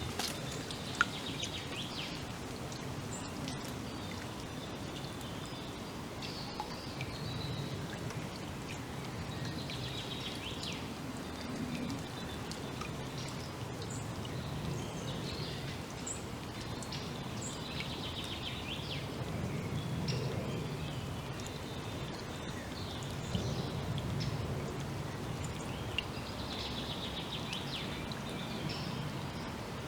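Forest ambience: songbirds calling now and then, with short rapid trills and chirps recurring every several seconds, over a steady hiss and a low rumble that swells and fades.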